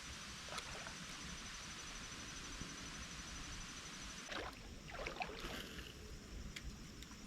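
Steady hiss of flowing river water, with a few short splashing or knocking sounds clustered about four to five and a half seconds in.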